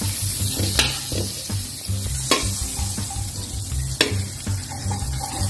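Butter sizzling as it melts in a hot wok, with a slotted spatula clicking against the pan three times as it pushes the butter around.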